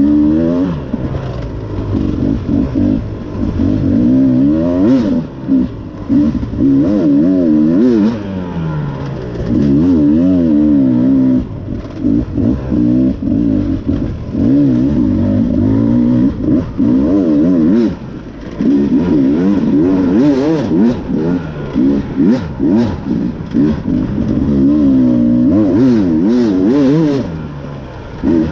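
Beta 300RR Race Edition's two-stroke single-cylinder engine, revving up and down again and again as the throttle is worked and eased, with a few short drops in level. Scattered knocks and clatter come from the bike over rough ground.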